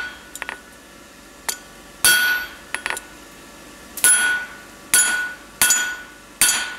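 Hand hammer striking a 6 mm round bar laid across a hot flat-bit tong jaw on the anvil, pressing a cross groove into the nib. There are about five heavy, ringing blows, spaced roughly a second apart, with a few lighter taps between them.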